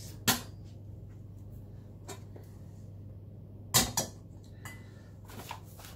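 A kitchen balance scale with a brass pan knocking and clinking as it is handled: a sharp knock just after the start, a faint one about two seconds in, and two knocks close together about four seconds in as the pan is lifted off its cradle.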